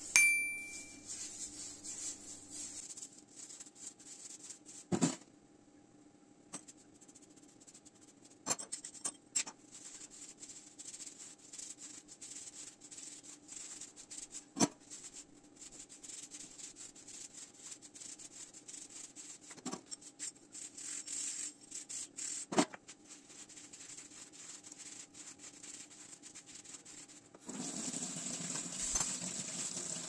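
Scrubbing a metal gas-stove pan support with a scrubbing pad: a steady rasping rub, broken by a few sharp clanks of the metal grate against the steel sink. A short ringing ding sounds right at the start, and about two seconds before the end the tap opens and water runs over the grate.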